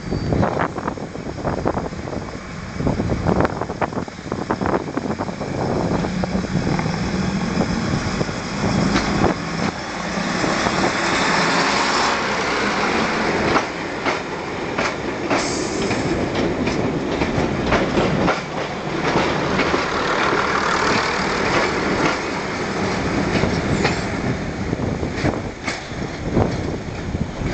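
Class 101 first-generation diesel multiple unit pulling away from a stand, its underfloor diesel engines working under load. It is loudest as it passes close, about ten to thirteen seconds in, with a run of short clicks from the wheels on the track.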